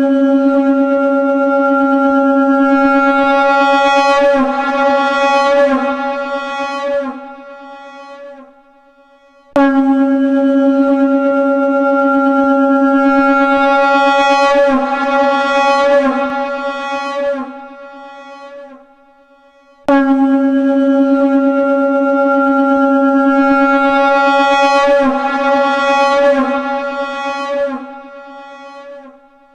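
Shankh (conch shell) sounding a long note pitched at C#, three times about ten seconds apart. Each note holds steady, then wavers near its end and fades out.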